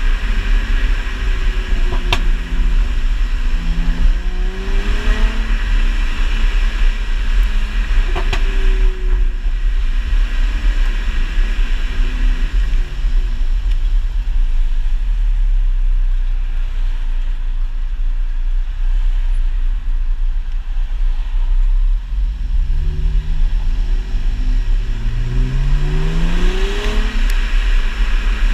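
Mercedes C350's 3.5-litre V6, running an ECU tune for overrun exhaust crackles, accelerating through several upshifts twice: in the first few seconds and again from about 22 seconds in, the pitch climbing and dropping back at each shift. Between pulls it cruises under a steady low road and wind rumble. A few single sharp exhaust pops come about 2, 8 and 27 seconds in.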